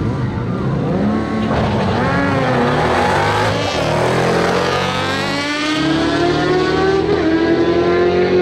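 Dodge Challenger SRT8's V8 and a sport motorcycle accelerating hard side by side down a drag strip, both engines revving up through the gears, pitch climbing and dropping back at each shift. The car passes close about four seconds in.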